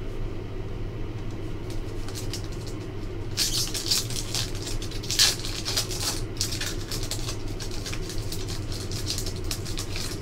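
A trading card pack's foil wrapper crinkling as it is torn open and the cards are slid out. The crinkling is heaviest from about three and a half to six and a half seconds in, with lighter rustling near the end, over a steady low hum.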